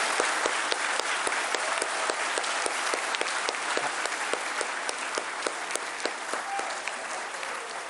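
A large crowd applauding, dense steady clapping that slowly fades a little toward the end.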